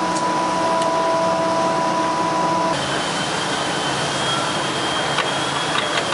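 Steady whir of woodworking machinery and its dust extraction running, with thin steady whine tones over it. The whine changes to a single higher one about three seconds in, and there are a few light clicks near the end.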